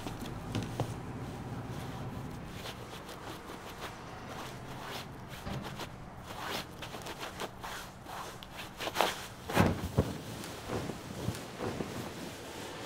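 Cotton bedsheets rustling and being smoothed and handled as a bed is made, with scattered small taps and a louder flurry of handling about nine seconds in, over a faint steady low hum.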